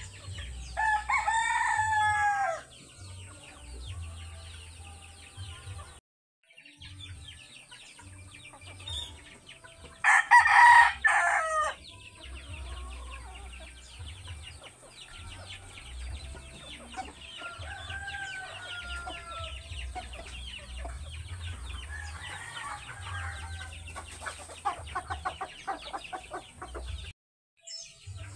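A rooster crowing twice, once about a second in and more loudly about ten seconds in, with softer clucking and calls between.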